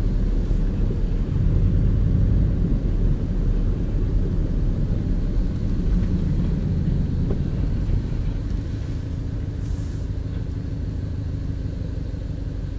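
Subaru Legacy BH5 heard from inside the cabin while driving slowly: a steady low rumble of its flat-four engine and tyres. It eases off and gets a little quieter in the last few seconds as the car slows.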